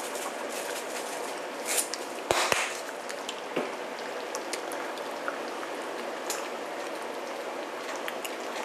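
Pot of chili bubbling at a simmer, with scattered small pops and a brief knock about two and a half seconds in.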